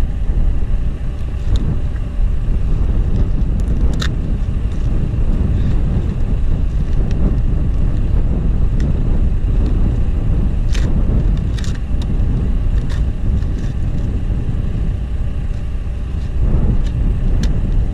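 John Deere 310SJ backhoe's diesel engine running with a steady low rumble, with scattered short clicks and knocks over it.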